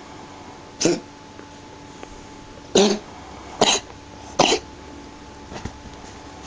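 A pet coughing: four short, harsh coughs, spaced about a second apart.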